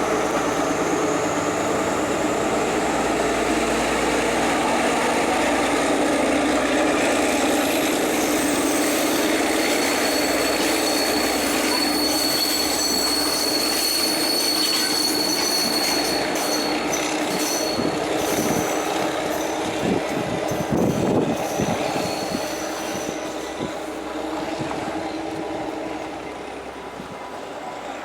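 Passenger train running past on the rails, its engine and running gear giving a loud steady rumble with a thin, high wheel squeal through the middle. Clickety-clack of wheels over rail joints comes in the second half, and the sound fades as the train draws away near the end.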